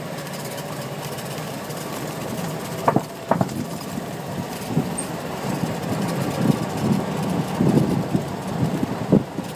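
Golf cart driving with a steady low hum, jolting on a bumpy concrete path: two sharp knocks about three seconds in, then a run of irregular bumps and rattles in the second half.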